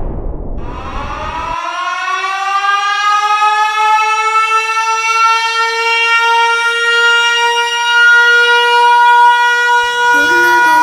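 A siren wail that winds up in pitch over the first couple of seconds and then holds a steady tone, with the tail of a noisy falling whoosh fading out under its start. Lower sound begins to join near the end.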